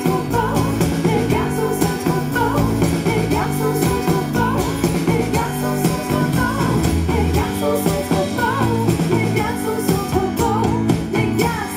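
Live pop band playing a song: women singing over electric bass and guitar.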